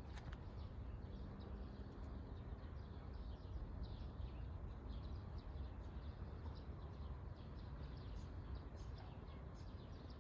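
Birds chirping over a steady low rumble of outdoor background noise.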